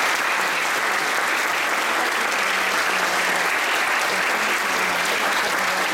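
Theatre audience applauding, a steady, dense clapping throughout.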